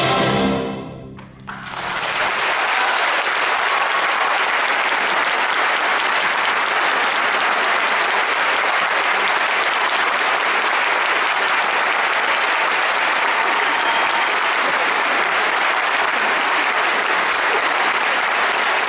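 Full orchestra's final brass-heavy chord cutting off and dying away in the hall's reverberation, then audience applause starting about a second and a half in and going on steadily.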